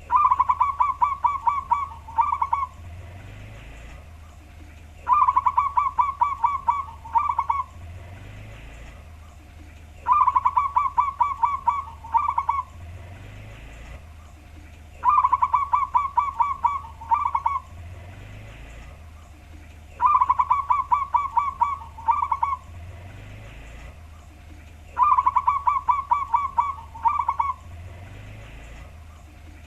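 Zebra dove (perkutut) cooing: six songs about five seconds apart, each a quick run of about ten short pulsed coos followed by a brief closing phrase.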